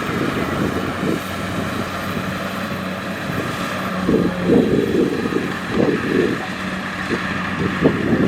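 Kubota DC-70 combine harvester running steadily, its engine giving a constant hum under a mechanical din. Low gusts of wind buffet the microphone several times in the second half.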